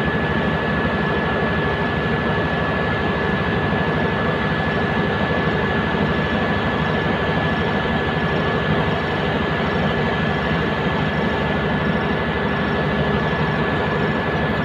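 Komatsu D155 bulldozer's diesel engine running steadily under a loud, even machine noise, with a thin steady high whine over it.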